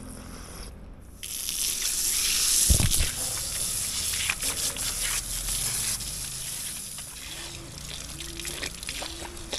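Water running and splashing as hands and forearms are washed under an outdoor tap, starting about a second in, with small irregular splashes over the steady rush.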